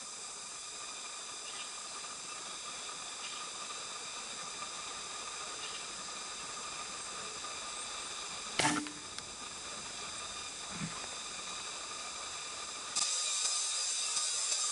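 A steady high hiss with a faint high whine in it, broken once about two-thirds of the way through by a single sharp knock. Near the end the hiss steps up and gets louder.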